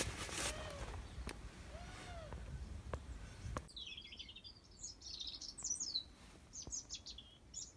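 Faint background hiss with a few light clicks, then about halfway in a clean birdsong track takes over: quick, high chirps and trills from several birds.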